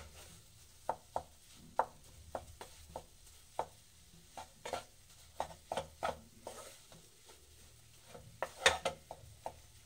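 Flat spatula knocking and scraping against a non-stick kadai in irregular taps as gram flour (besan) roasting in ghee is stirred continuously over a low flame, with a quick cluster of louder knocks near the end.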